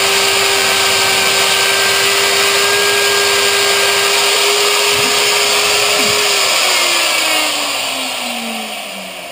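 CNC router spindle running while machining aluminium: a steady high whine over a loud hiss. From about six seconds in the whine falls steadily in pitch and the sound fades as the spindle winds down.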